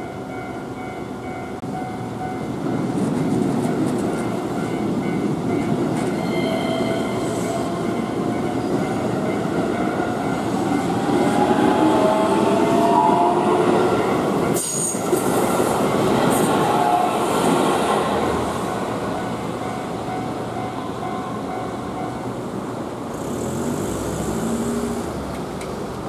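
Keihan electric commuter train running through a level crossing: a steady rumble of wheels on rail with whining tones that rise and fall, over the crossing's repeating electronic warning bell. Near the end a road vehicle pulls away across the tracks.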